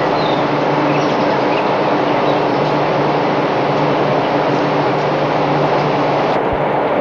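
An engine running steadily, a constant rumble with a low hum, with a few faint bird chirps in the first second or so.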